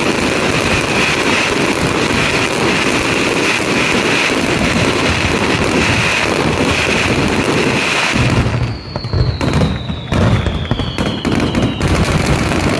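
A rapid fireworks barrage: a dense, continuous run of bangs and crackling from many shells bursting at once, with two falling whistles about nine seconds in.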